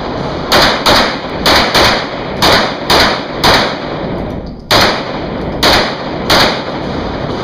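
Semi-automatic pistol firing about ten shots, mostly as quick pairs about half a second apart, echoing in an indoor concrete shooting range.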